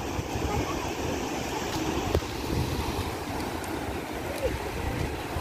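Sea surf washing and breaking on the shore, with wind rumbling on the microphone and a brief knock about two seconds in.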